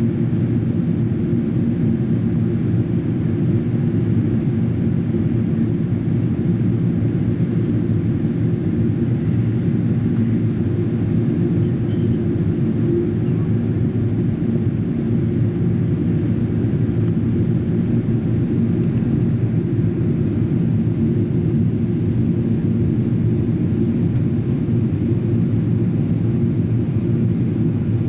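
Steady drone of a Boeing 777-200ER heard inside the cabin in flight: engine and airflow noise, deep and even, unchanging throughout.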